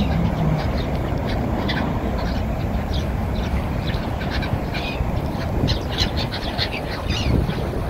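A flock of black-headed gulls calling: many short, harsh cries overlapping, several a second, growing busier toward the end. A steady low rumble runs underneath.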